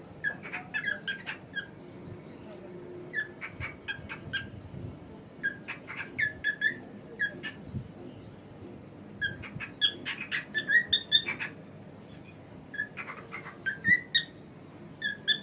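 Cockatiel whistling and chirping in about six bursts of quick, short notes, with pauses of a second or two between them.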